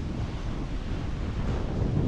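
Strong wind buffeting the microphone: a steady low noise with no distinct events.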